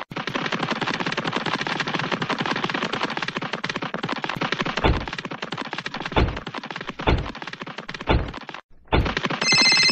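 Battery-powered toy steam train running on plastic track with a fast, continuous rattling clatter, broken in the second half by five deep thuds about a second apart. Near the end an electronic phone ringtone starts.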